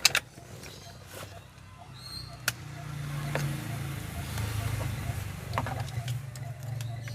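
A few sharp clicks, then a low motor-vehicle engine hum that swells from about two and a half seconds in and stays steady.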